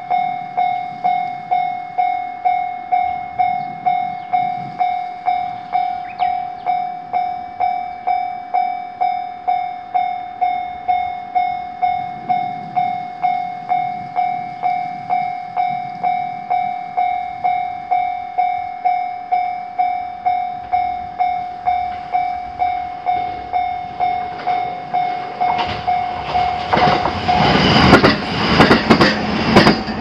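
Japanese level-crossing warning bell ringing one tone in a steady, even rhythm. From about 25 s in a train runs through the crossing, a loud rumble with a rapid run of wheel clatter over the rail joints that drowns out the bell.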